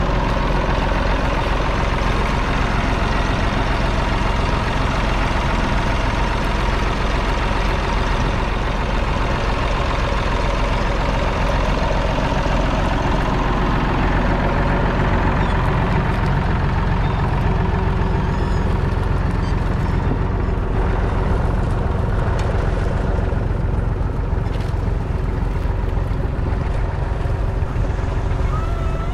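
Massey Ferguson 250's 2.5-litre three-cylinder Perkins diesel engine running steadily, growing a little duller about halfway through.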